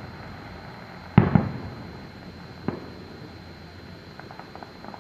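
Fireworks exploding: a loud bang about a second in, followed at once by a second, each trailing off in a rumble; a smaller bang near three seconds; then a quick run of small crackling pops near the end.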